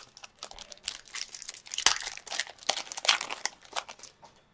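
Crinkling and crackling of a trading-card pack wrapper as hockey cards are handled, a dense run of sharp rustles that stops shortly before the end.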